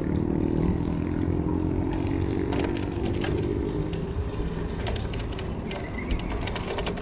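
Street traffic heard from a moving bicycle: a motor vehicle's engine hum fades away over the first few seconds. Steady road rumble and scattered light clicks and rattles continue under it.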